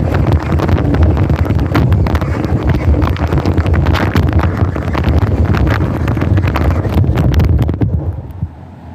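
RC car driving, a loud rattling rumble full of crackles, with wind buffeting the microphone; it drops away sharply near the end.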